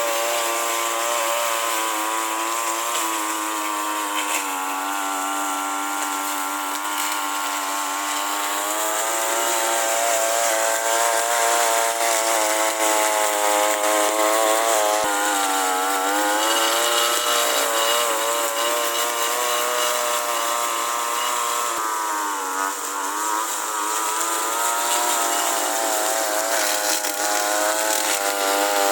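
Push lawn mower's engine running steadily while mowing grass, its pitch wavering and dipping briefly twice, around the middle and about two-thirds of the way in.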